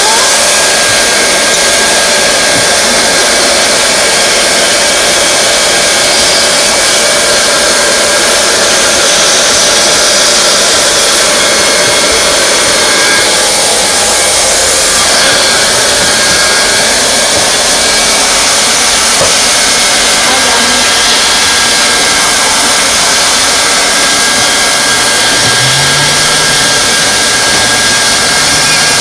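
Handheld hot-air plastic welding gun blowing steadily as it heat welds an overlap of TPO roofing membrane, a loud, even hiss with a faint steady whine.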